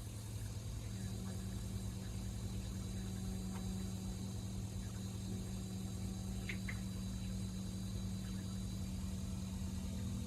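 Novation Peak synthesizer holding a low, dark drone over a steady hiss; a second low tone joins about a second in, and two short high chirps sound a little past the middle.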